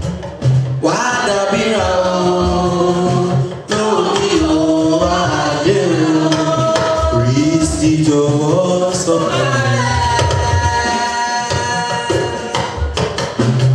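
A church choir of women's voices singing a hymn through microphones, several voices together in long held melodic lines, with drum and percussion accompaniment.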